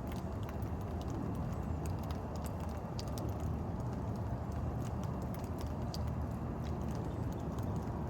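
Steady rain during a thunderstorm, a constant low rush with scattered drops ticking irregularly throughout.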